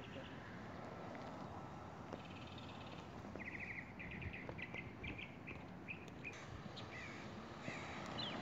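Birds calling, faint: short chirps and calls that come thickest from about three seconds in, over quiet outdoor background noise.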